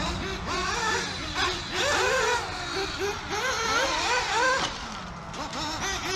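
Nitro RC car's small two-stroke glow engine, an Alpha Dragon .21, revving up and falling back again and again as the car is driven around the track. The driver says it is still running a little rich.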